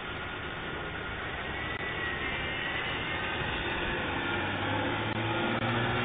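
A car driving by on the street. Its engine and tyre noise grows gradually louder toward the end, over the steady hiss of a doorbell camera's microphone.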